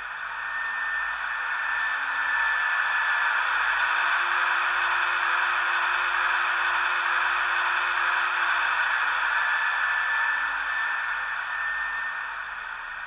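Blower (cooling-fan) sound from the Märklin BR 150 model locomotive's sound decoder, played on its speaker: a steady rushing hiss that swells up over the first couple of seconds and dies away near the end, with a faint whine that rises in pitch as it spins up and falls as it runs down.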